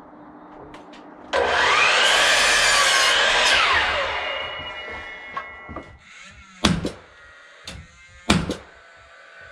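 Electric power saw spinning up and cutting through a 2x4 for about two seconds, then its motor winding down. Sharp wooden knocks follow, the two loudest about a second and a half apart.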